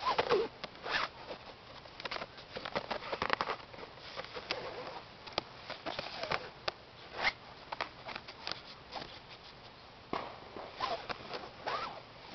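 A cat's claws scratching and rustling at a blanket in quick, scratchy strokes that come in irregular flurries.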